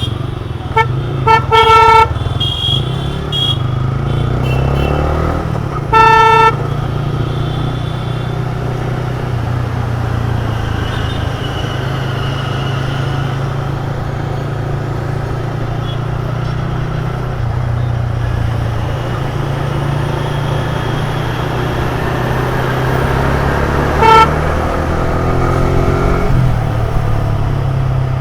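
Motorcycle on the move in traffic, its engine and road rumble running steadily with a few changes in pitch. A vehicle horn is honked several times: a quick run of short toots in the first two seconds, one longer blast about six seconds in, and a brief toot near the end.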